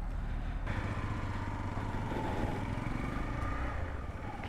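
Hero XPulse 200 motorcycle's single-cylinder engine running as the bike moves off, a steady low rumble that picks up a little less than a second in.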